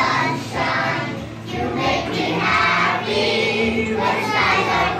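A song with a group of children's voices singing together over music.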